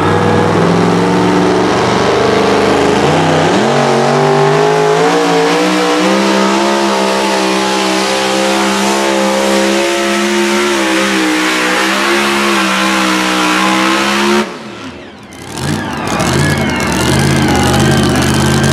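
Supercharged pulling truck's engine goes from a rough idle to full revs about three seconds in and runs hard under load as it drags the sled, its pitch climbing slowly, then cuts off abruptly near the end. An engine idles steadily afterwards.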